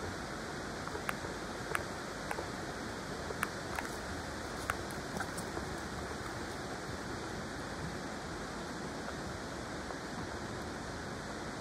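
Steady rushing of a clear mountain river's flowing water, with a few short sharp ticks in the first half.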